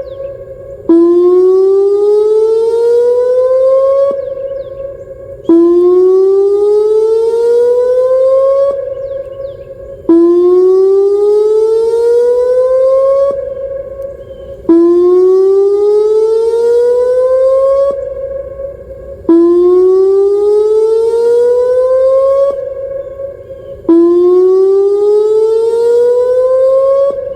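Whelen WPS-2909 electronic outdoor warning siren sounding its whoop signal. Each tone sweeps upward in pitch over about three and a half seconds, holds briefly at the top, then cuts off, and echoes trail into each short gap before the next whoop. Six whoops run in a steady cycle about every four and a half seconds.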